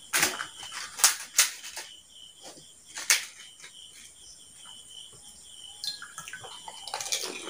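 Crisp fuchka (pani puri) shells cracking as they are poked open and bitten, a few sharp crunches spaced a second or more apart, with a cluster of them near the end.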